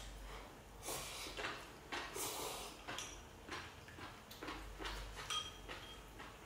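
Chopsticks clicking against ceramic bowls and the hotpot during a meal, with soft eating noises in between: a string of short, faint clicks and brief rustles, and a light ring about five seconds in.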